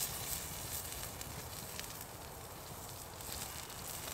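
Pancetta slices sizzling on a wire grill over a campfire, a steady hiss with scattered sharp crackles from the fire.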